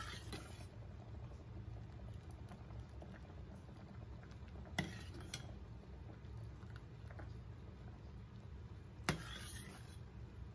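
Teriyaki sauce simmering with soft bubbling in a stainless steel saucepan while a metal ladle stirs and scoops it. The ladle clinks sharply against the pot at the start, about five seconds in, and about nine seconds in.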